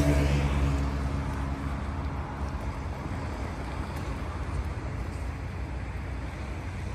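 A passing engine hum, loudest at the start and fading away over the first two seconds, then a steady low rumble of wind and sea.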